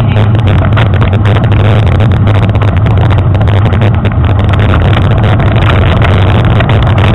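Wind buffeting and trail rattle on a handlebar-mounted action camera as a mountain bike rides a rough dirt trail: a loud, steady low rumble with constant small knocks and rattles from the bumps.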